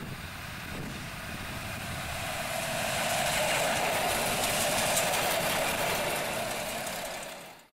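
RS1 Regioshuttle diesel railcars (class 650) running past close by. The noise grows louder as the train draws near, stays loud while the cars go by, then cuts off abruptly near the end.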